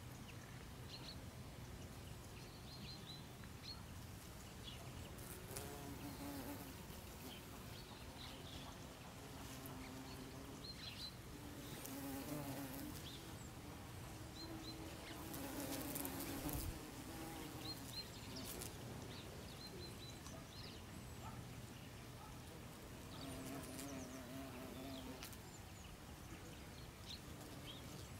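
Honeybees buzzing as they forage on strawberry-tree blossoms, the buzz swelling and fading several times as bees fly close past, loudest near the middle.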